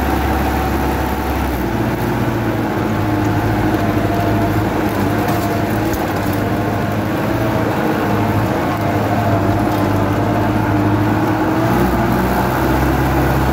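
Sonalika 75 HP tractor's diesel engine running steadily under load, driving a 4-foot rotavator through the soil, heard from the driver's seat.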